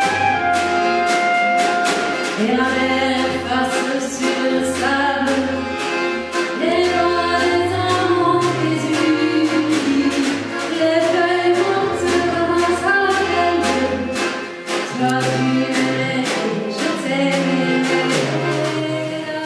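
Klezmer band playing live: a woman singing over accordion and drum kit, with a low bass line and a steady beat of drum and cymbal hits.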